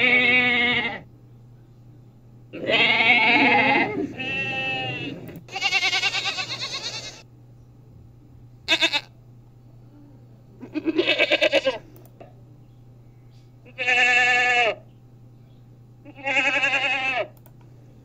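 Domestic goats bleating: about eight separate calls, each lasting up to a second or so, several with a quavering tremble.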